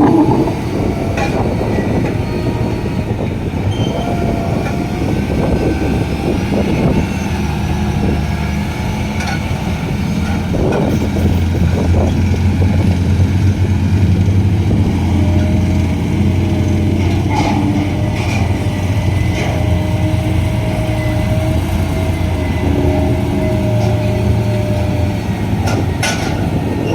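Heavy diesel earthmoving machinery, an excavator and a dump truck, running steadily with a deep engine drone and a faint whine, broken by a few sharp clanks.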